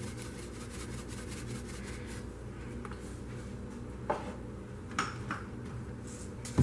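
A few light clicks and knocks of spice containers being handled at the crock pot, about four seconds in and twice more a second later, over a steady low hum.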